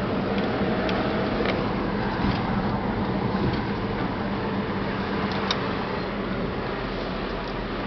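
Car engine and tyre noise heard from inside the cabin while driving at a steady pace, with a low hum and a few small clicks or rattles.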